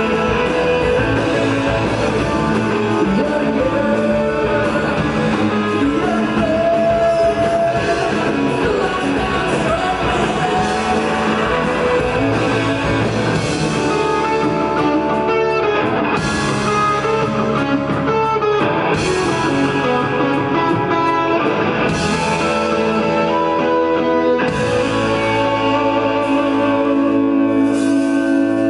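Live rock band playing loudly: two electric guitars over a drum kit. In the second half the drums play a run of hits and the music stops and restarts sharply several times.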